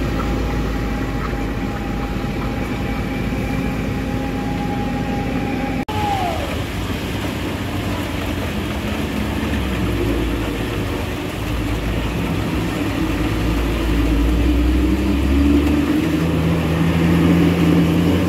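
Heavy diesel truck engines labouring up a steep climb; it breaks off briefly about six seconds in. After the break, a Hino tanker truck's diesel works hard uphill and grows louder near the end as it comes close; the truck is struggling because its tyres slip on the wet road.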